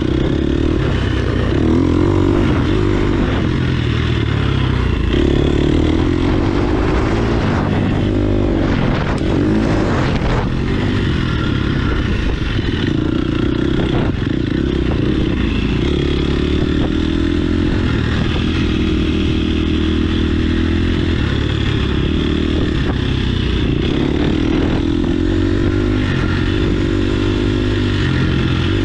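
Husqvarna dirt bike engine running at low speed, its revs rising and falling with the throttle, with some rattling clatter about a third of the way in.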